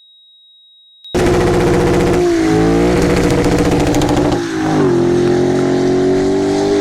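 Car engine under acceleration, cutting in suddenly about a second in; its note drops twice at gear changes and then climbs again.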